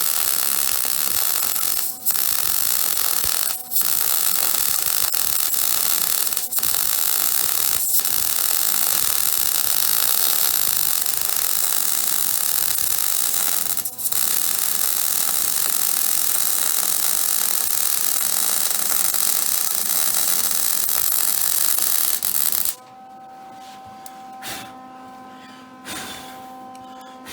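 MIG welder arc crackling steadily while welding the steel frame of a Yamaha Grizzly 660 ATV, with a few short breaks in the arc. It stops about 23 seconds in, leaving a low electrical hum.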